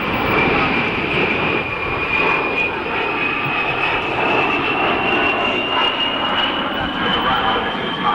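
Fairchild A-10 Thunderbolt II jet passing overhead in a display. Its TF34 turbofans make a steady rush of jet noise over a high whine that rises slowly in pitch.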